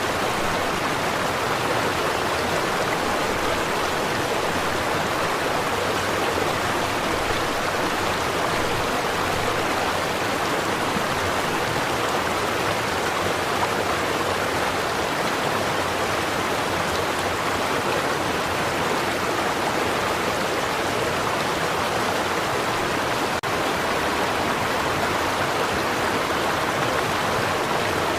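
A stream flowing: a steady, unbroken rush of water.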